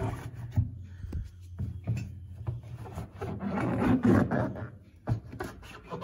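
Cloth rubbing and scrubbing along the rubber door gasket of a front-loading washing machine in irregular wiping strokes, with a few small knocks, to clear accumulated dust.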